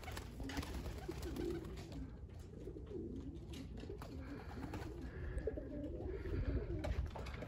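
Racing pigeons cooing: a run of low, warbling coos one after another, over a low rumble.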